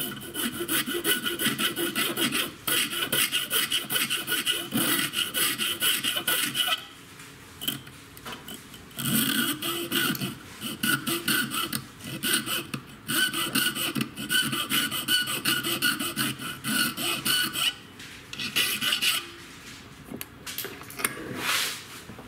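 A needle file scraping back and forth across the edge of a milled 2 mm FR4 glass-fibre panel held in a bench vise. The strokes come quickly and evenly in runs of several seconds, broken by short pauses, with a few last strokes near the end.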